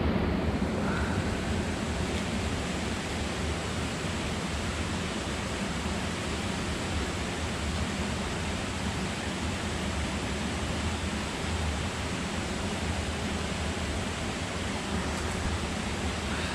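Steady rushing of a river's flowing water, an even hiss with no breaks.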